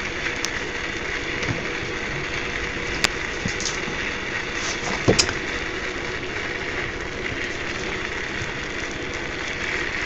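Steady mechanical hum with a faint steady tone in it, and two light clicks about three and five seconds in.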